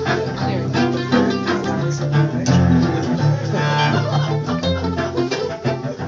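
Cello played in a quick run of notes, mostly plucked or strummed, with some bowed sound.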